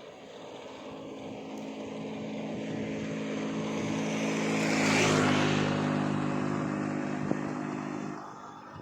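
A motor engine passing by: its steady engine note grows louder to a peak about five seconds in, then fades away and drops off about eight seconds in.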